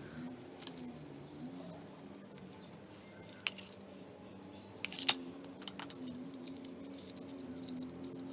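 Small metal tools clicking and clinking as a 10 mm socket and 8 mm Allen key loosen the axle nut off a bicycle pedal's spindle. There are scattered light clicks with a few sharper ones, over a faint steady hum.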